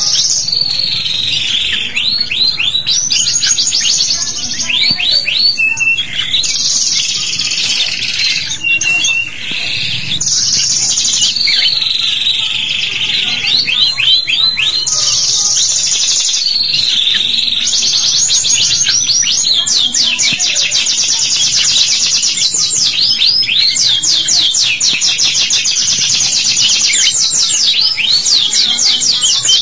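Domestic canaries singing vigorously: long, nearly unbroken runs of fast high-pitched trills and rolling chirps. This is the kind of full "gacor" song played as a master recording to coax young canaries into singing.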